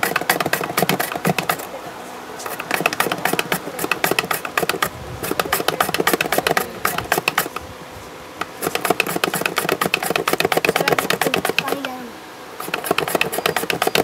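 A carrot being rubbed rapidly back and forth over the stainless-steel grating blade of a plastic multifunction vegetable chopper: fast scraping strokes in runs of a few seconds, broken by short pauses.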